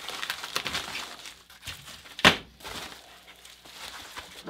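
Plastic packing wrap rustling and crinkling as it is handled and pulled off, with one sharp knock a little over two seconds in, then fainter rustles.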